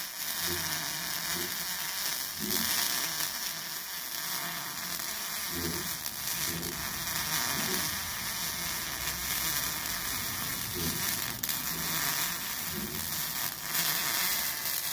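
MIG welding arc from an Ideal 200 Pulse welder, burning steadily with a dense sizzling hiss and a few brief dips.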